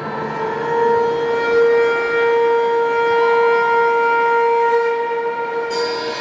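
Dance music from the hall's sound system, here one long note held at a steady pitch with a faint hiss beneath it; a brighter layer joins near the end.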